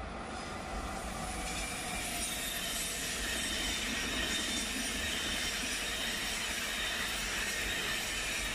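ICE high-speed train rolling past on the mainline, a steady rush of wheel and running noise with a high whine on top. It grows louder over the first few seconds and then holds steady.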